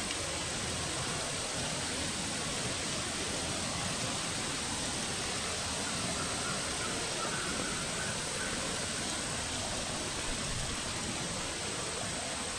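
Steady, even hiss of background noise with a faint constant high whine; no distinct sound stands out.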